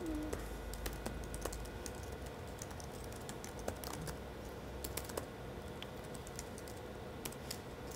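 Faint, irregular keystrokes on a computer keyboard as someone types code.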